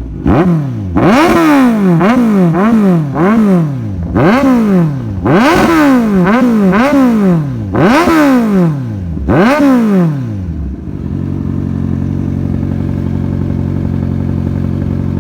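Kawasaki Z1000's inline-four engine revved through an aftermarket Y-pipe exhaust: a dozen or so sharp throttle blips, each rising and dropping straight back, then about ten seconds in it settles into a steady idle.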